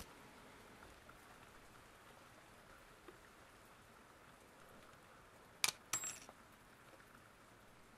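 Two sharp metallic clicks about half a second apart, the second with a brief ringing tail, like a small metal part set down or knocked on a hard surface, over faint hiss.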